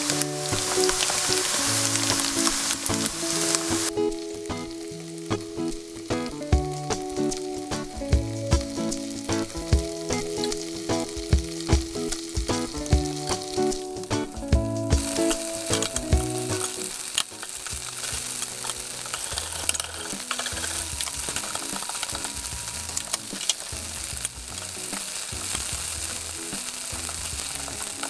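Tofu pieces sizzling as they fry in oil in a stainless steel pan, with sharp clicks as a utensil turns them against the pan in the middle stretch. Quiet background music plays under the sizzle until about two-thirds of the way through.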